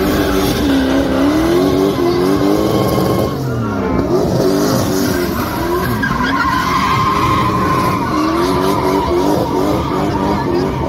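A drift car's engine revving hard, its pitch rising and falling quickly as the driver works the throttle through the slide. The revs drop briefly three to four seconds in, then climb again. The tyres squeal steadily as the car slides sideways, smoking its rear tyres.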